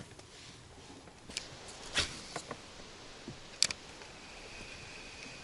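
Quiet background with a handful of scattered sharp clicks and knocks, and a faint steady high-pitched tone coming in near the end.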